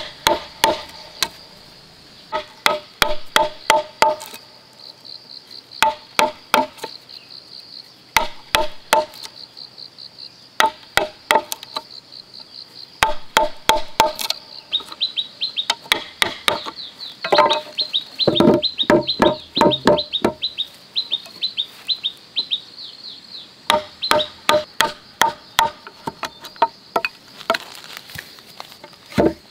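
Wooden mallet striking a steel chisel into a timber beam, cutting out a mortise: quick runs of sharp wooden knocks, several blows to a run, with short pauses between runs.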